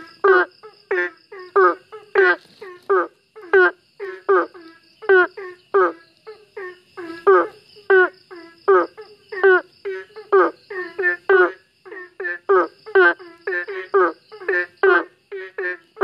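A frog calling, its throat sac swelling with each call: a rapid, uneven series of short croaks, about three a second, some loud and some softer.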